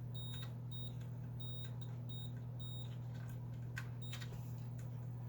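Multimeter continuity beeper giving about six short, high beeps as the probes touch pins joined by intact traces, over a steady low hum.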